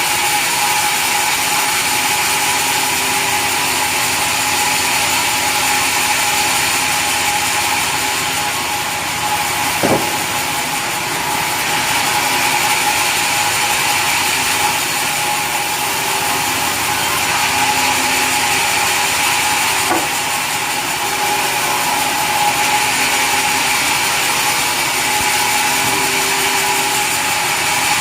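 Sawmill saw running steadily as it cuts mahogany wood, with a steady whine over the noise of the cut. Two sharp knocks about ten seconds apart.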